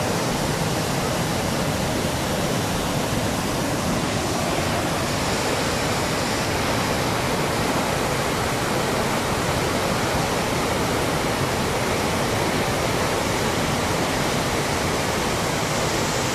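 Turbulent floodwater surging out below a river barrage, churning and foaming in a steady, even rush.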